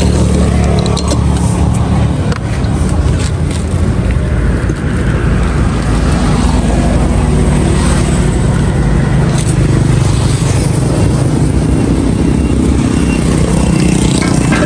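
Road traffic, mostly motorbikes, running steadily past close by, with a few light clinks of utensils on top.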